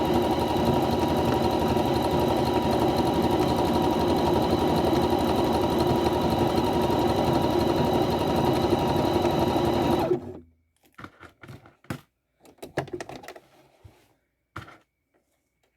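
Sewing machine running steadily at speed, stitching hair wefts onto a wig cap, then stopping abruptly about two-thirds of the way through. A few light clicks and taps follow.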